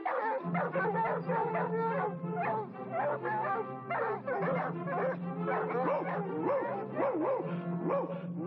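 A cartoon dog barking and yelping over orchestral background music, its calls coming quick and excited, with rising and falling yelps in the second half.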